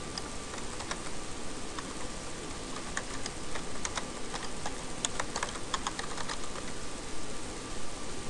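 Typing on a computer keyboard: a run of quick keystroke clicks, thickest in the middle of the stretch.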